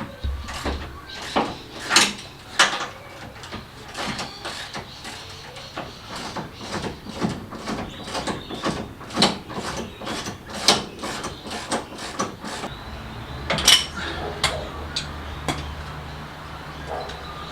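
Hand tools working on a car's front suspension at the lower control arm's ball joint: an irregular run of sharp clicks and knocks. The loudest strikes come about two seconds in and near the end.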